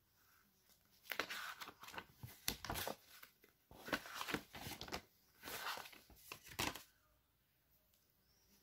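Paper rustling as a notebook is opened and its pages are handled and turned, in several separate rustles over about six seconds.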